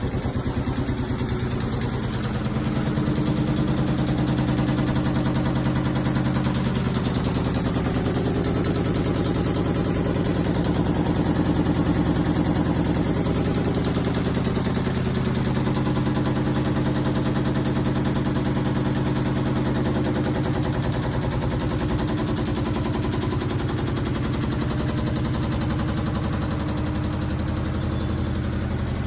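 Front-load washing machine running, a loud steady motor hum with a fast rattle. Its tones shift in pitch now and then, around a few seconds in and again past the middle.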